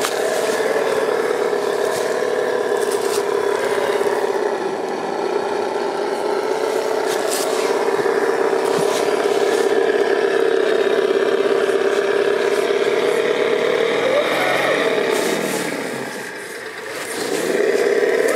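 RC scale crawler's electric motor and gearbox whining steadily as it climbs through dry leaves. The whine drops away as the throttle eases, then rises again near the end. Dry leaves crackle and scrape under the tyres now and then.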